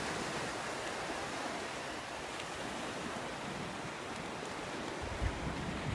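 Steady rush of small surf breaking and washing up a sandy beach. About five seconds in, a low rumble of wind buffeting the microphone joins it.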